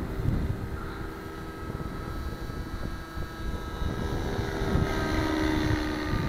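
Nitro glow engine and rotors of a JR Vibe 55 RC helicopter running in flight, a steady whine that gets louder in the second half. The engine is set rich, which the pilot says still gives plenty of power. Wind rumbles on the microphone.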